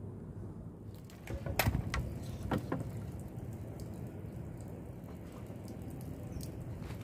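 A few short knocks and clicks between about one and three seconds in, from a wooden beam and a hand-held router being handled before cutting. Under them is a steady low background noise; the tool itself is not running.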